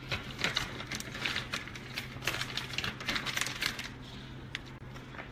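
Plastic bag of shredded mozzarella crinkling and rustling as the cheese is shaken out over a foil pan, a rapid crackly run that dies down about four seconds in.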